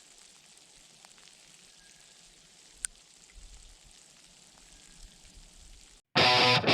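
Faint steady hiss with one sharp click about three seconds in, then loud guitar music starts abruptly near the end.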